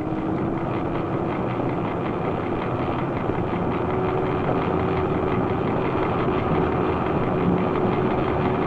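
Heavy engine running steadily, a constant mechanical rumble with a held hum and faint regular ticking.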